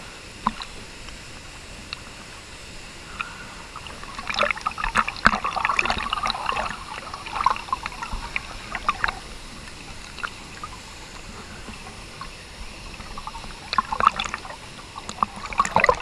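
Water splashing and lapping close up at the surface of a waterfall pool, over a steady rush of falling water. The splashing comes in bunches about four seconds in and again near the end.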